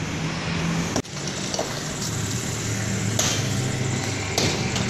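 Masonry being smashed, with a few sharp blows and crashes of breaking brick over a steady low drone.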